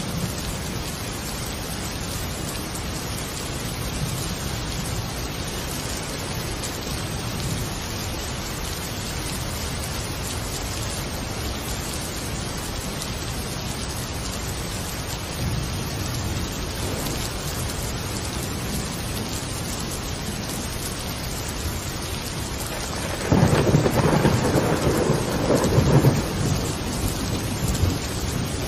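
Steady rain with thunder; a louder roll of thunder rumbles for about three seconds near the end.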